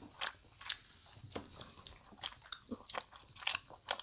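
Close-miked chewing and biting of soft Korean fish cake (eomuk): an uneven string of short mouth clicks and smacks, roughly two a second.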